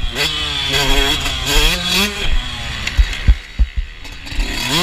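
Motocross bike engine revving up and down under throttle, then falling quiet as the throttle is closed for about two seconds, with a few sharp thumps in that gap. Near the end the engine picks back up with a rising rev.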